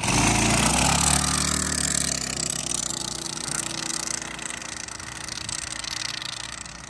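Predator 212cc Ghost single-cylinder four-stroke kart engine accelerating hard from a standing start. It is loudest in the first second or two, then fades as the go kart drives away down the street.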